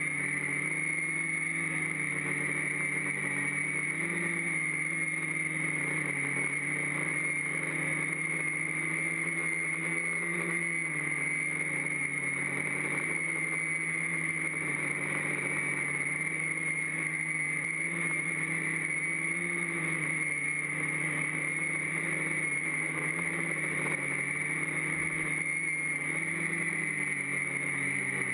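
Quadcopter's four electric motors and propellers heard from a camera mounted on its own frame: a steady buzzing drone with a high whine, its low tones wavering up and down as the throttle changes.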